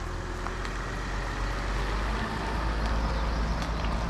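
Mercedes-Benz Sprinter van driving past on an asphalt road: a steady rumble of engine and tyres that grows stronger about two seconds in as the van draws level.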